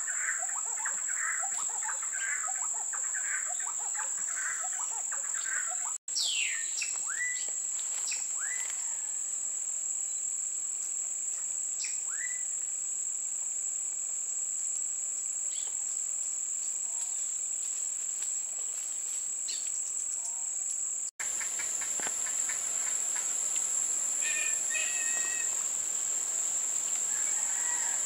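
A steady, high-pitched insect drone runs throughout. Over it, a dense chatter of chirping calls fills the first six seconds, followed by a few separate descending whistled calls and some short repeated notes near the end. The sound drops out briefly twice, at about six and twenty-one seconds in.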